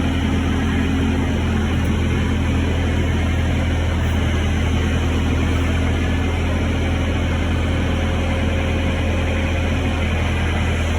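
Steady low machine drone with an even hiss, unchanging throughout.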